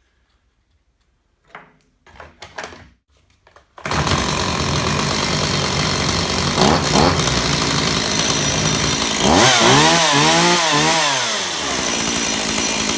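Stihl MS170 two-stroke chainsaw starting about four seconds in and running steadily, then revved up and down a few times about halfway through. Its carburetor is flushing through with fresh fuel after bar-and-chain oil in the tank. A few soft knocks come before it starts.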